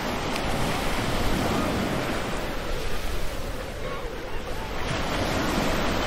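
Ocean surf breaking and washing up a sandy beach: a steady rushing noise, with wind rumbling on the microphone.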